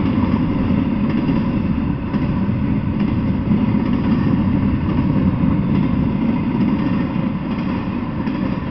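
Double-stack intermodal freight train rolling past: a steady rumble of steel wheels on the rails, easing slightly near the end.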